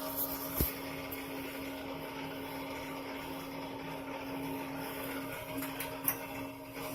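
Steady mechanical hum with a constant low tone, with a brief knock about half a second in and another near the end.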